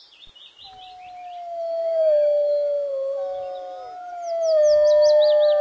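Canine howling: two long, drawn-out howls that overlap, each held and slowly falling in pitch. Birds chirp high above them from about two-thirds of the way in.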